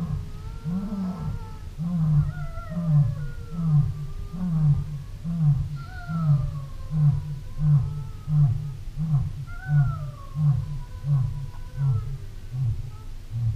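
A cheetah purring close by: a rhythmic rumble that pulses about twice a second, with thin gliding higher tones drifting over it.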